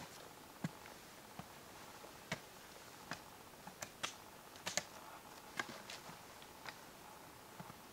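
Footsteps and trekking-pole taps on a wooden log ladder: irregular sharp knocks and clicks, about one or two a second, over a faint steady hiss.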